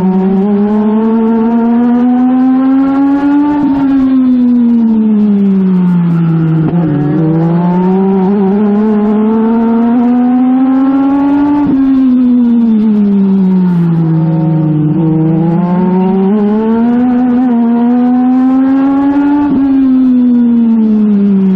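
Legend race car's Yamaha four-cylinder motorcycle engine at race speed, heard from inside the car: the revs climb for several seconds, then fall away, and climb again, about every eight seconds, as the car accelerates down each straight and lifts for the turns of a short oval.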